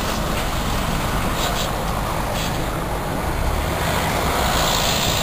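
Steady rushing engine noise of a departing aircraft climbing away after take-off.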